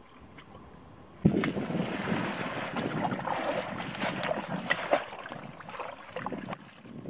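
Rustling and crackling of dense, broad-leaved water plants, with light sloshing of shallow water, as hands push in among the stems, starting suddenly about a second in.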